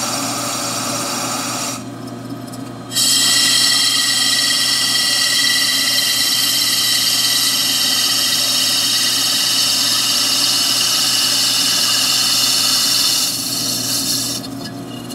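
Lathe boring tool cutting inside a spinning aluminium turbocharger compressor housing, over the steady hum of the spindle. A short lighter cut and a pause of about a second are followed by about ten seconds of louder, steady high-pitched cutting noise with ringing tones, which eases off near the end.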